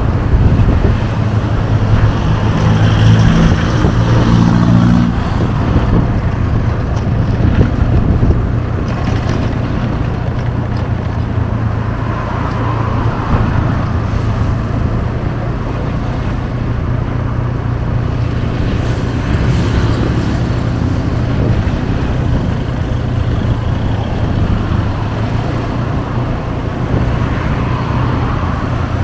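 Road traffic noise: the steady sound of motor vehicles' engines and tyres on the road, a little louder in the first eight seconds.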